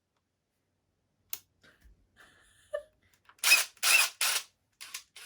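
Handling noise from a cordless drill and its bits: a sharp click about a second in, a few small clicks, then three loud short rasps in quick succession and two fainter ones near the end.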